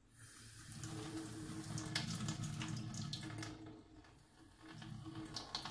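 Kitchen tap running water through quinoa in a small mesh strainer and splashing into a stainless steel sink, to rinse the grain. The flow comes on just after the start and drops to a thin trickle about four seconds in, with a few light clicks.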